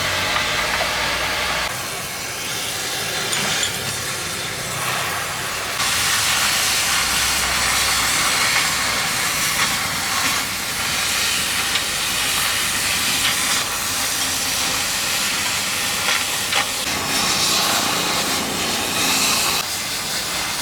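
Oxy-fuel cutting torch hissing steadily as it cuts steel, the hiss growing louder about six seconds in.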